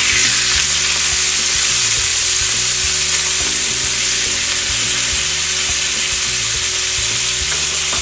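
Skin-on chicken thighs frying skin-side down in hot oil in a pan: a loud, steady sizzle as the skin crisps.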